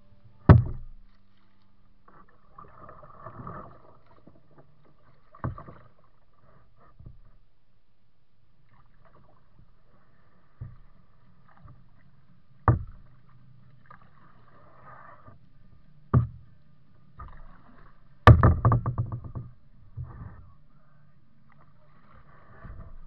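Kayak being paddled: soft splashing and dripping from the paddle, broken by five sharp knocks. The loudest knock comes about three-quarters of the way through and is followed by a quick rattle.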